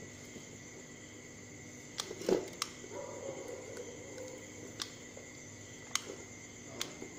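Soldering a circuit board with a soldering gun: a few sharp clicks, with the loudest knock about two seconds in, over a steady high-pitched background tone.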